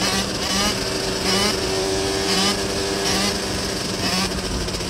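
Dirt bike engine running under throttle during a wheelie, surging about once a second.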